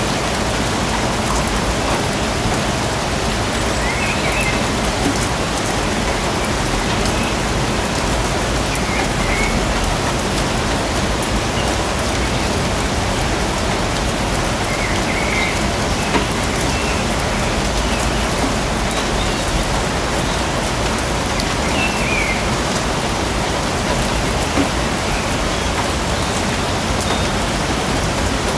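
Steady, even rainfall, with a few short, faint chirps every few seconds.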